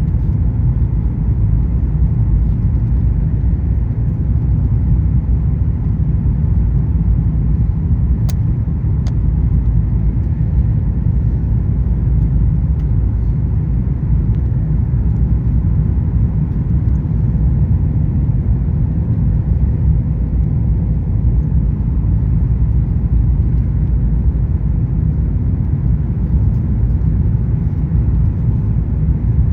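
Steady low rumble of cabin noise inside a Boeing 737-900ER, from its CFM56-7B turbofan engines and the airflow over the fuselage, with two brief clicks about eight and nine seconds in.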